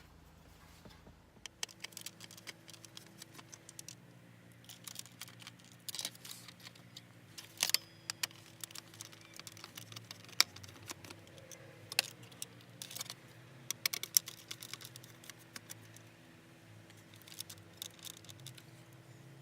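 Irregular small clicks and taps of hands handling the car stereo's mounting chassis, wiring and plastic clips, over a faint steady hum.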